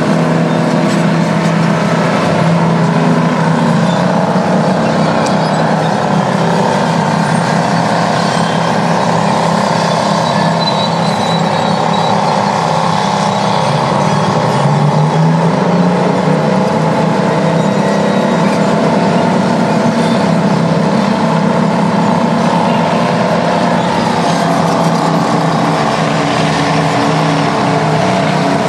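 Detroit two-stroke diesel engine of a vintage Terex earthmover working under load: a loud, steady running note whose pitch sags and then climbs again about halfway through as the engine is loaded and revs back up.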